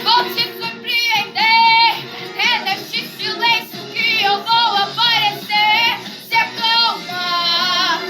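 Portuguese worship song (louvor): a high, child-like voice sings a melody with long held, wavering notes over instrumental accompaniment.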